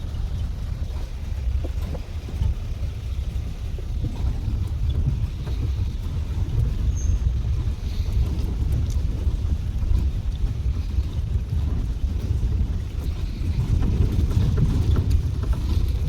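Open Gypsy safari jeep driving along a forest track: a steady low rumble of engine and tyres mixed with wind on the microphone, growing a little louder near the end.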